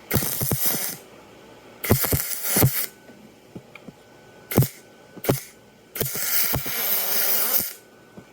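Arc welding aluminium onto a Vespa engine case in short bursts: a crackling, spitting arc struck four or five times, the last run the longest at nearly two seconds, with two brief blips between.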